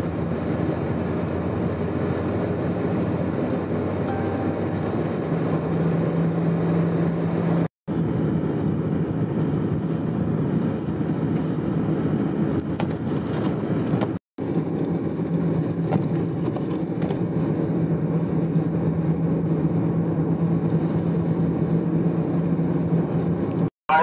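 Steady drone of a moving vehicle: a constant low engine and road hum under a haze of wind and tyre noise. It drops out briefly three times, about eight seconds in, around fourteen seconds, and just before the end, where the footage is cut.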